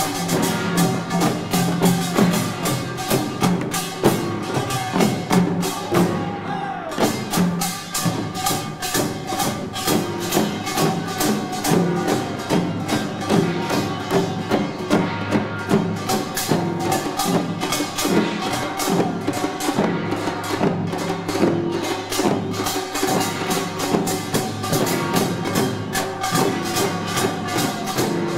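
Korean pungmul farmers' percussion playing a fast, dense rhythm on kkwaenggwari small brass gongs and drums, with a brief break in the strikes about six seconds in.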